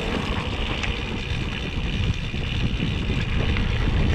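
Wind buffeting an action-camera microphone while riding a mountain bike, with tyre rumble and faint rattles from the bike over a rough track.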